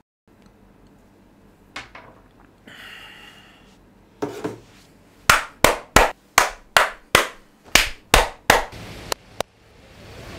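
Hands clapping at a steady pace, about ten sharp claps at roughly three a second, then two softer ones. These follow a few scattered knocks and a brief rustle.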